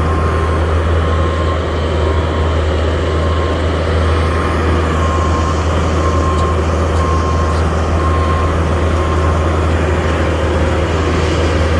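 Skid steer's engine running steadily with a deep, even rumble, and a thin high tone that comes and goes over it.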